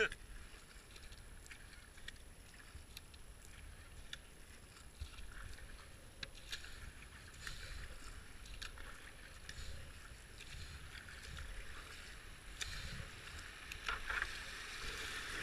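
Kayak paddle strokes dipping and splashing in the river, with water running along the hull and scattered light knocks. The water sound grows louder near the end as the kayak reaches a stretch of white-water rapids.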